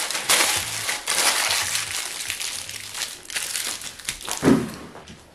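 Aluminium foil crinkling and crumpling in repeated bursts as it is folded and pressed tightly around a squash by hand, dying down near the end, with a duller thump about four and a half seconds in.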